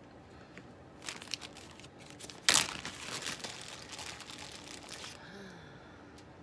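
Plastic packaging crinkling and rustling in bursts for about four seconds, loudest in a sharp crackle about two and a half seconds in.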